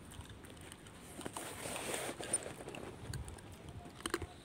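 Macaque chewing hard food kernels, with a few sharp crunches just after four seconds in and a soft rustling swell in the middle.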